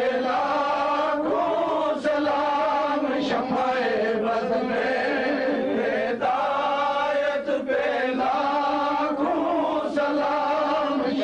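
Devotional chanting, a continuous sung melody held long with only brief breaks for breath.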